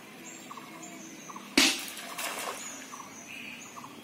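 Quiet outdoor background with faint high chirps and small ticks about twice a second. About a second and a half in comes one sudden loud hit with a short splashy tail.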